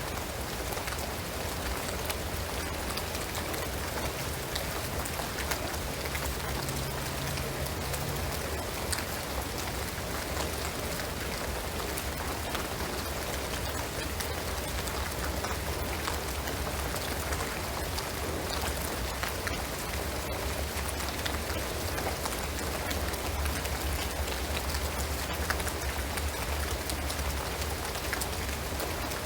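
Steady rain falling on a shingled roof and pine trees: an even hiss dotted with scattered ticking drops.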